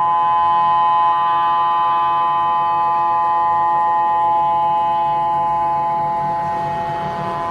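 Emergency Alert System attention signal: the steady two-tone alarm of 853 and 960 Hz sounding together, loud and unbroken.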